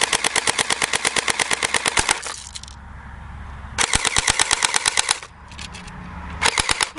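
Airsoft gun firing BBs on full auto: a long burst of rapid, even shots at about a dozen a second, a second shorter burst, and a brief burst near the end as the magazine runs empty.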